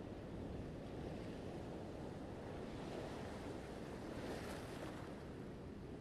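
Ocean surf: a steady low rush of waves, with one wave swelling and washing in a little past the middle before it fades.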